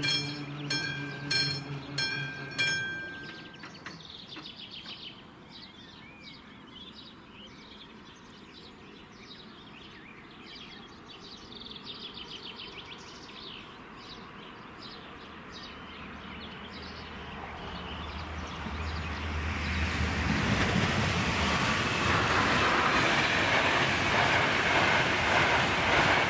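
AŽD 71 level-crossing warning bell (classic type) striking about one and a half times a second, stopping about three seconds in. From about two-thirds of the way through, a passenger train approaches with a rising low hum, and its passing rumble grows to the loudest part near the end.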